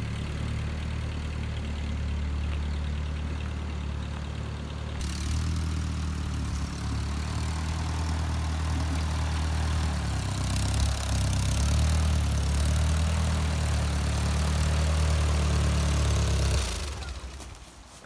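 A machine running steadily, a deep hum with a hiss over it. The hiss grows louder about five seconds in, and after about seventeen seconds the machine shuts off and winds down.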